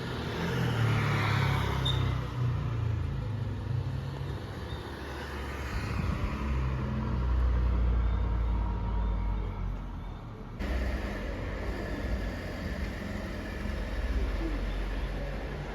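Street traffic: motor-vehicle engines rumbling low and passing, with pitch that rises and falls. Partway through, an abrupt change in the background marks a cut to another stretch of the same kind of traffic sound.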